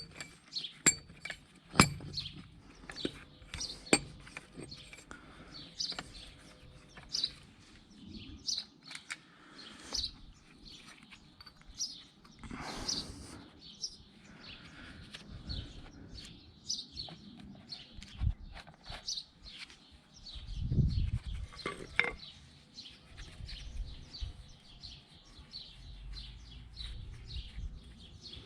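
Small birds chirping steadily, with scattered light metallic taps and knocks as a wheel bearing part is tapped gently into a front hub. A few louder knocks come near the start and about two-thirds of the way through.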